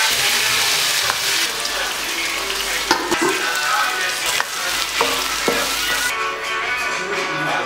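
Diced chicken sizzling loudly as it hits a hot wok and fries, with a few sharp knocks as it is stirred; the sizzle quietens about six seconds in.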